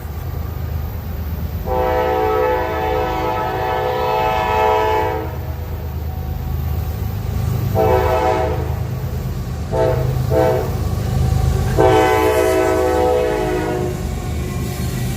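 Approaching CSX diesel freight locomotive sounding its multi-chime air horn: a long blast, a shorter one, two quick short toots, then another long blast, over the steady low rumble of the locomotive and train.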